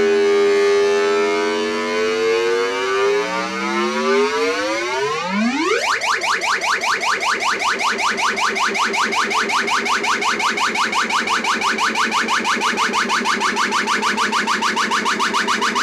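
Electronic tones sweeping and bending in pitch, with a few quick rising glides, then changing at about six seconds in to a fast, even pulsing warble of several pulses a second, like a siren or alarm.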